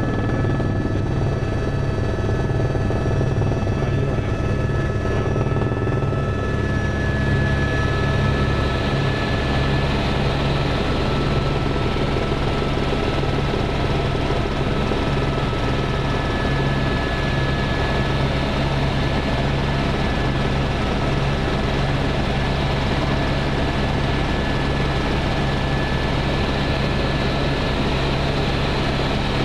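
Helicopter in flight, heard from inside the cabin: a steady, loud rotor and engine drone with a couple of thin high whining tones over it.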